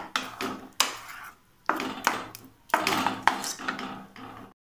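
A flat spatula scrapes and stirs thick mashed papaya around a pan in repeated strokes, roughly one every second, stopping abruptly near the end. The pulp is being kept moving so it does not stick while its water cooks off to a thick paste.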